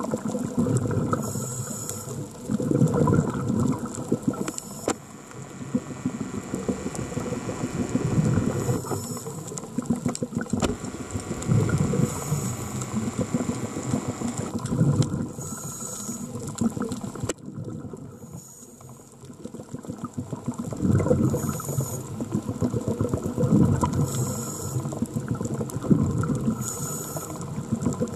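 Scuba diver breathing through a regulator underwater: a short hiss on each inhale and a low surge of bubbles on each exhale, repeating every three to four seconds, with a quieter pause a little past the middle. Scattered clicks and rattles throughout.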